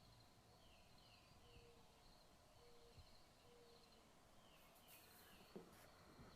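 Faint birdsong: a bird repeating a phrase of three short downward-sliding chirps every few seconds, with short higher notes between. A few brief low steady notes sound in the middle, and a small click comes near the end.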